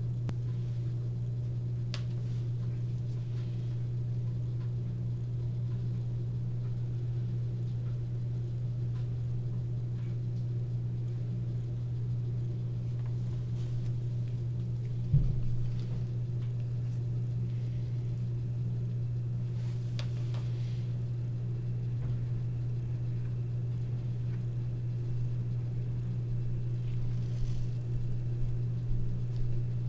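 Steady low hum of room background noise, with a single thump about fifteen seconds in and a few faint rustles from handling the small epoxy cup and applicator stick.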